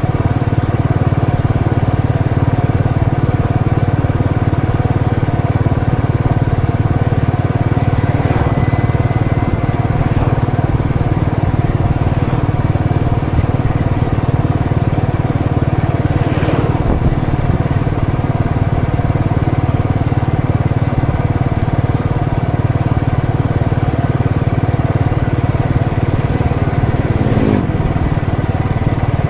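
Royal Enfield Electra's single-cylinder engine running steadily, heard from the rider's position, with a few faint clicks.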